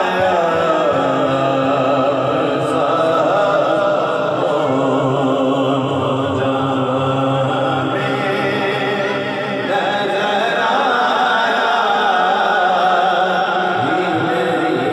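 Naat, an Urdu devotional praise poem, sung by a man over a loudspeaker system without instruments. A steady low drone holds beneath the melody.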